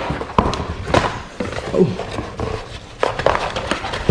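A shipping package being opened and handled by hand: irregular rustling and crinkling with scattered clicks and light knocks.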